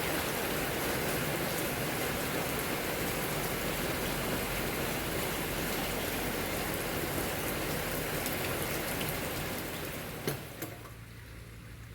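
Rain falling steadily, easing off near the end, with two short knocks about ten seconds in.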